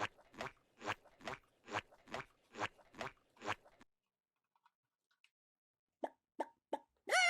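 Cartoon sound effects: a steady run of soft plops, a little over two a second, stopping about four seconds in. Near the end come three short pitched blips and the start of a brief pitched chirp.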